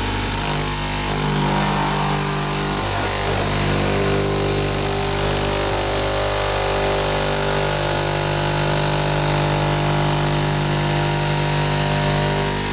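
Factory machinery running with a loud, steady, low-pitched mechanical hum.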